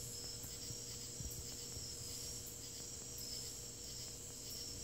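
Crickets trilling steadily, a continuous high-pitched chorus.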